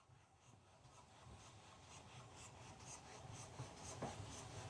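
Train approaching the platform: a faint low rumble with a high hiss, growing steadily louder, with light regular clicks about twice a second from the wheels.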